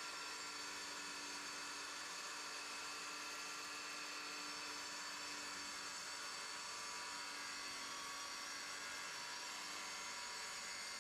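Tile saw motor running with a steady high whine.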